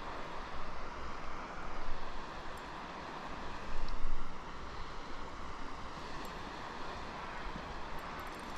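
Wind buffeting the microphone: a steady rush with a low rumble, swelling louder a few times, most strongly about four seconds in.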